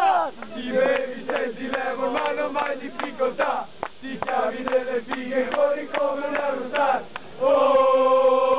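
A group of young men chanting a football supporters' chant, with handclaps through the middle. Near the end they all come in loudly on a long held "Ooooh".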